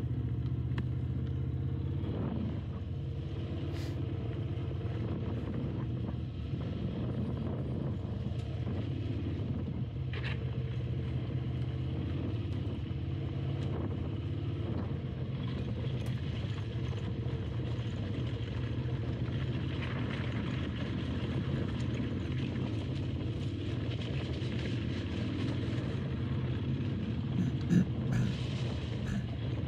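Motorcycle engine running steadily at low speed on a rough dirt track, with scattered knocks and clatter from the bike going over rocks and a sharper clunk near the end.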